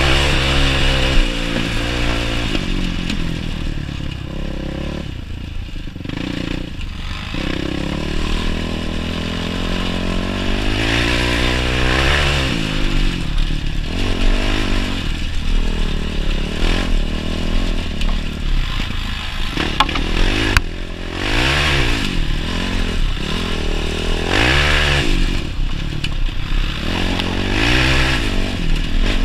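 Yamaha YFZ450 quad's single-cylinder four-stroke engine running hard, its pitch rising and falling again and again as the throttle is opened and closed.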